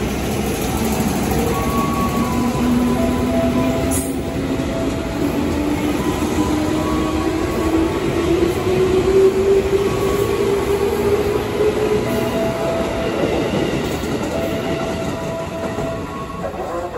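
An ex-JR 205 series electric commuter train pulling out and gathering speed, its wheels rumbling on the rails. The motor whine climbs steadily in pitch as it accelerates, with short higher squeals from the wheels and a sharp click about four seconds in.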